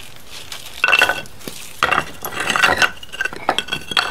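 Flat rocks clinking and scraping against a large stone slab as they are set in place, in short clattering bursts about a second in, around two seconds and near the end.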